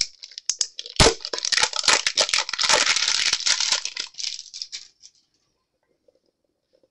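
Foil wrapper of a Pokémon TCG booster pack crinkling and tearing as it is opened. A sharp click comes at the start and another about a second in, then dense crinkling for about four seconds before it stops.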